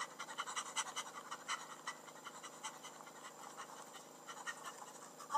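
Faint, irregular panting mixed with scratchy scraping, many short quick strokes.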